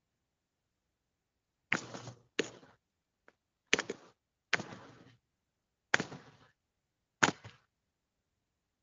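Six sharp knocks at irregular intervals, roughly a second apart, each with a short fading tail and dead silence between them.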